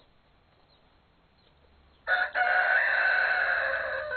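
Rooster crowing: one loud, drawn-out crow beginning about halfway through.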